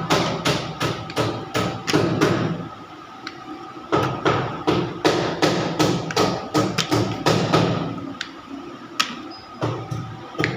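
Ultrasonic rotary-table cap-welding machine at work: rapid, irregular clacks and knocks, several a second, over a steady low hum.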